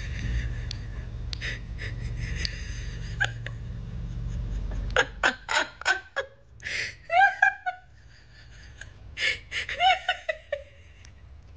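A woman laughing: stifled, breathy laughter at first, then about five seconds in, open bursts of laughter in quick short pulses with gasps and squeaky rises in pitch, coming in two rounds.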